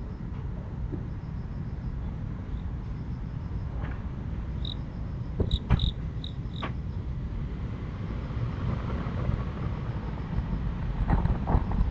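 Outdoor neighbourhood ambience: a steady low rumble like distant traffic, with insects chirping in short repeated pulses. A few sharp clicks or knocks come about five and a half seconds in, and more near the end.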